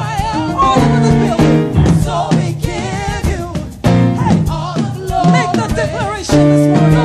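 Live gospel worship band playing: keyboard chords over drums and bass, with a singing voice on top.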